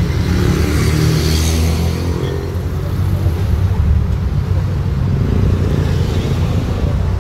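Street traffic passing close by: motorcycle, car and minibus engines running with tyre noise, one vehicle swelling past about a second in.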